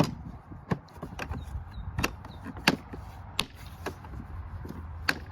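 Plastic tackle box being handled: about eight sharp clicks and knocks at uneven intervals, as lids and parts of the box are moved.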